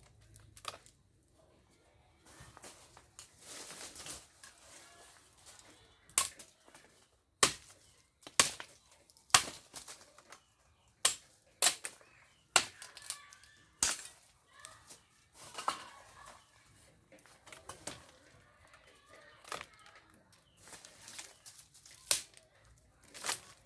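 A string of irregular sharp knocks and snaps, roughly one a second, over faint background noise.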